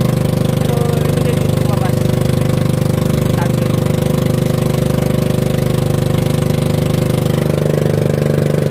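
Small outrigger fishing boat's engine running steadily with a regular throb; its tone shifts slightly near the end.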